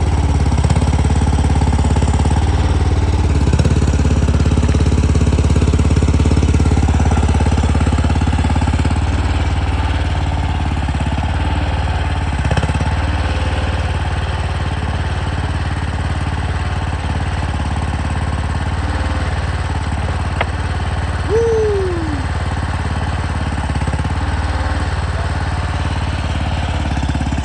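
Mini skid steer's engine running steadily, with a single sharp click and a short falling squeak about 21 seconds in.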